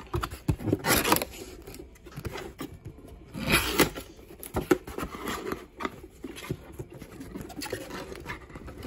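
A cardboard box being opened by hand: irregular scraping, rustling and ripping of cardboard and packing, loudest about a second in and again around three and a half seconds in.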